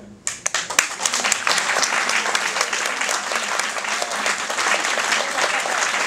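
Audience applauding: a few separate claps start about a quarter second in, then build within a second into steady, full applause.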